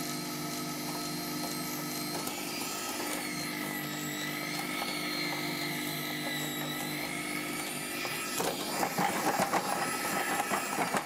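Electric potter's wheel motor running with a steady hum, its pitch dipping slightly midway and recovering. After about eight seconds a rougher, irregular rubbing noise joins in as hands work the wet clay on the spinning wheel.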